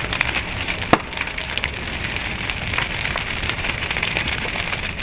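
Wooden house burning: fire crackling steadily, with many sharp pops and snaps of burning timber and one loud crack about a second in.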